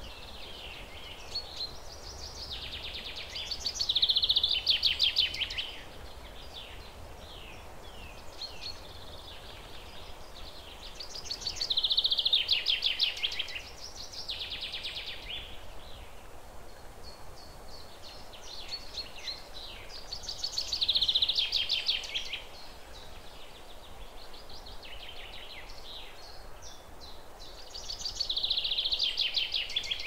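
A songbird sings a loud phrase of rapid notes, about two seconds long, four times at roughly eight-second intervals, with fainter chirps in between, over steady low background noise.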